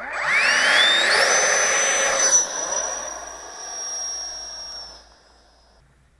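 Electric ducted fan of a 70 mm RC L-39 jet (11-blade fan rotor on a 2100kV motor, 5-cell battery) spooling up with a steeply rising whine for about a second, then a steady high whine that fades away and stops shortly before the end.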